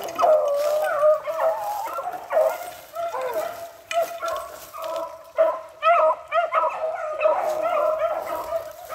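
A pack of hounds in full cry: several dogs baying and barking at once, long drawn-out bawls mixed with quick chopping barks, the sound of a pack running hot on the trail of moving quarry.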